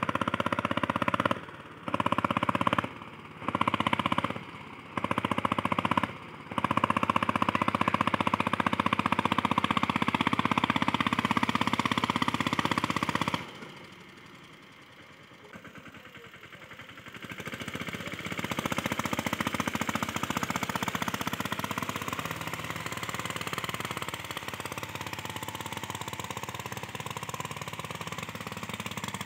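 Mahindra Yuvraj 215 NXT mini tractor's single-cylinder diesel engine chugging with a fast, even knock while it pulls a loaded trailer through soft ploughed soil. The sound drops out briefly four times in the first few seconds, falls away for a few seconds near the middle, then returns a little quieter and steady.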